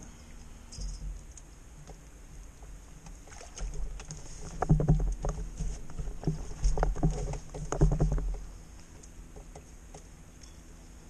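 Irregular knocks and rustles of a feeder fishing rod and reel being handled as the line is wound in, loudest from about three and a half to eight seconds in.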